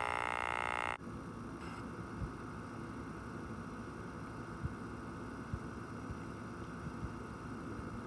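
The last held chord of a logo jingle cuts off about a second in, leaving steady VHS tape hiss and low hum with a few faint soft ticks.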